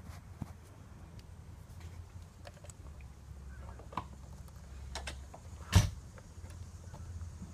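Plastic replacement fuel pump module being handled and set into the fuel tank opening: scattered light clicks, then one sharp knock a little before six seconds in, over a low steady rumble.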